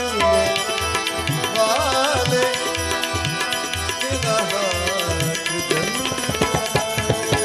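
Instrumental interlude of Indian devotional music: tabla playing a steady rhythm, the bass drum's strokes bending in pitch, under a held drone and a wavering melody line.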